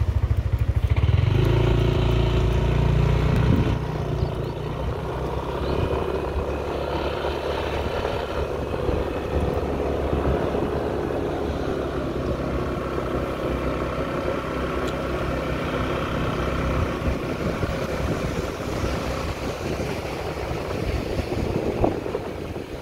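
Motor scooter's engine running while riding along, its pitch shifting a little with the throttle. Loudest for the first few seconds, then quieter and steady.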